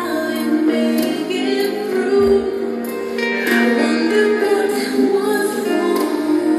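Music playing: a song with a woman singing.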